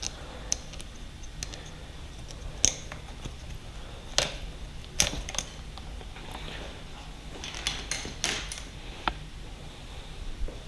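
Scattered sharp metal clicks and clinks of hand tools and small parts as a dirt bike's handlebar controls are taken apart, the loudest about five seconds in.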